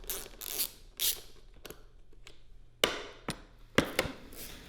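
Handling noises from work on a dirt bike: brief rustling near the start, then a handful of sharp knocks and clicks from about three seconds in.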